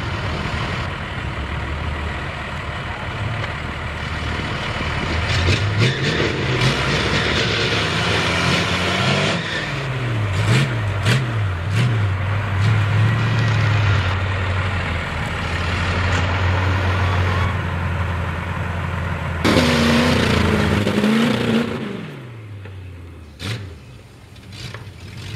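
Old Ford 2WD mud truck's V8 on open headers revving hard as it digs through a mud pit, the engine pitch rising and falling over and over. The hardest rev comes near the end, then the engine sound drops away.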